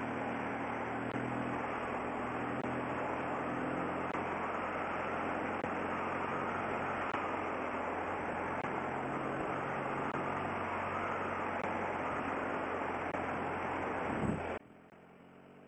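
Motorcycle engine running at a steady speed under rushing wind noise while riding. It cuts off abruptly about a second before the end.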